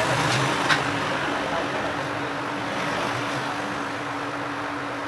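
A blower running steadily: an even rushing noise with a constant low hum, and two light clicks in the first second.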